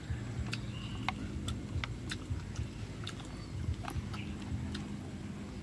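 A man chewing a mouthful of shrimp salad with fresh greens and flowers, making sharp, wet mouth clicks at irregular intervals over a steady low rumble.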